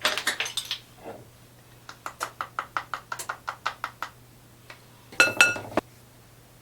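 Kitchen utensil clinking against a mixing bowl while dry cake ingredients are mixed. A clatter comes first, then a run of quick light taps about five a second, then a ringing clink near the end.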